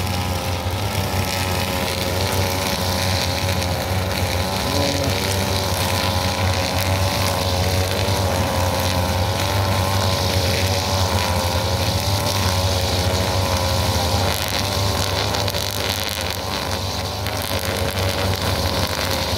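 Backpack brush cutters running steadily at high speed, their nylon trimmer lines cutting short grass. The engine note wavers slightly in pitch over a continuous cutting hiss.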